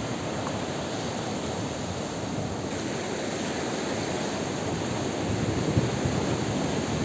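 Steady rushing noise of moving water and wind, with no distinct events.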